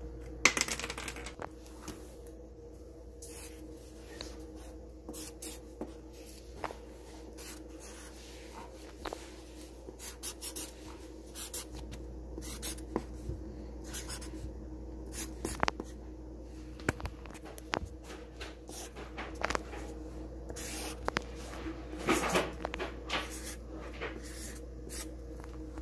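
Black marker drawing on a sheet of paper: a run of short, separate pen strokes over a faint steady hum.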